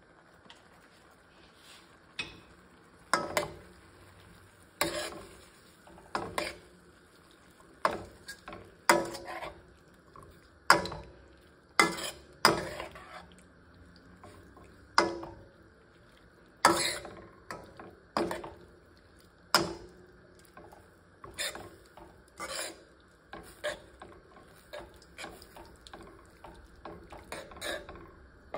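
A metal spoon stirring vegetables and sauce in a stainless-steel pan, clinking against the pan every second or two after the first couple of seconds.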